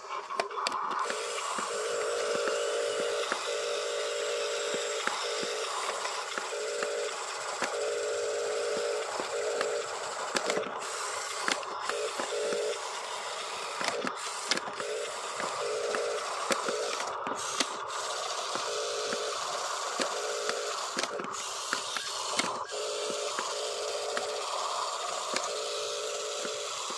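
Small electric gear motors of radio-controlled construction models whining in stop-start spurts of about a second each as they are driven and worked, with scattered clicks of dirt and gravel.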